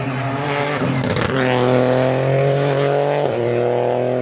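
Rally car engine under hard acceleration, changing up twice: about a second in, with a short burst of noise, and again a little past three seconds. The pitch climbs gently between the shifts.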